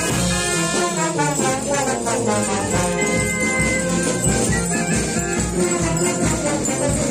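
Live brass band of trumpets and trombones with drum playing a dance tune, with a jingling of bells over it.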